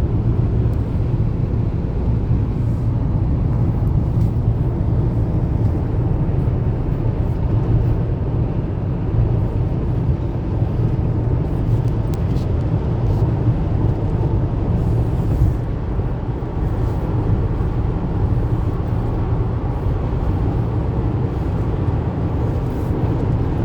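Car driving along a road: a steady low rumble of engine and tyre noise that holds even throughout.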